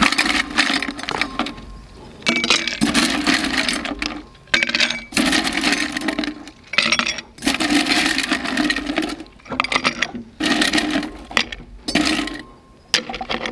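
Ice cubes being scooped by hand from a stainless steel YETI one-gallon jug: repeated bursts of ice rattling and clattering against the hollow metal jug, with sharp clinks as cubes go into a glass mug.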